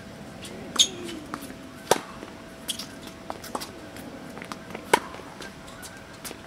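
Tennis rally on a hard court: a tennis ball struck by rackets and bouncing, heard as a series of sharp pops about a second apart, the loudest about one second in and again about five seconds in, with softer ticks between.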